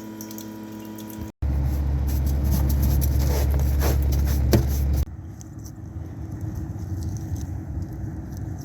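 Mini excavator's diesel engine running, a loud low rumble with a few sharp clanks, after a steady hum in the first second. The sound changes abruptly twice, at edits.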